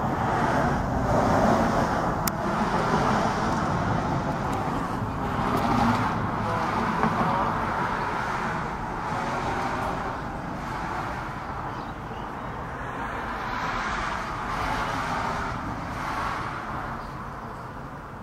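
Outdoor road-traffic noise, a rushing sound that swells and fades every few seconds as vehicles pass.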